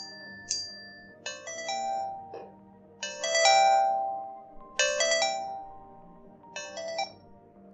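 A ringtone playing through the small built-in speaker of a boAt Wave Connect smartwatch: a short chiming melody that repeats four times, about every two seconds, after a couple of brief high tones near the start.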